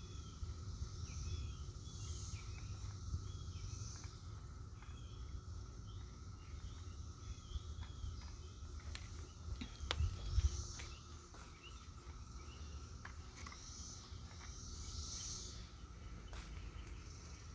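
Outdoor ambience: small birds chirping and insects calling over a steady low rumble, with a few faint clicks.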